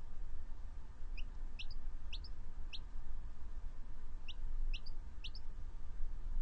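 A young chick peeping: two runs of short, high chirps, each rising in pitch, about four near the start and three or four more about two seconds later, over a steady low rumble.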